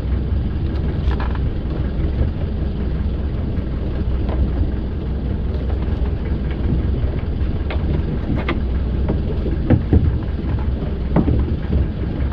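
Outrigger fishing boat's engine running with a steady low rumble, with wind buffeting the microphone. A few short knocks come in the second half.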